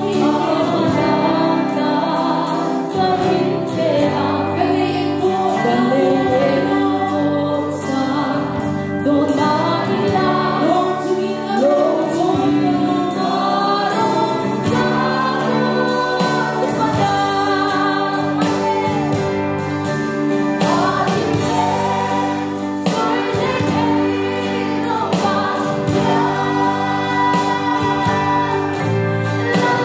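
Live worship music: a female lead vocalist sings a gospel praise song into a microphone, with backing singers and a band of guitars, bass, keyboard and drums playing along.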